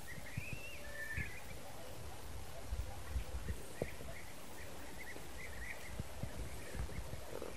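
Wind rumbling on the microphone and footsteps through dry stubble, with small birds giving short chirps now and then.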